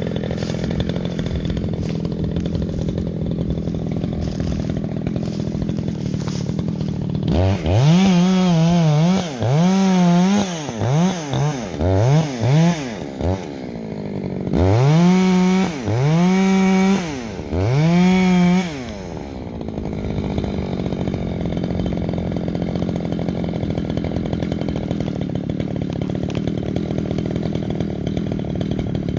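Echo CS-620PW two-stroke chainsaw running steadily at high revs. From about seven seconds in, it is revved up and down about seven times: four quick blips, then three longer ones. It then settles back into a steady run.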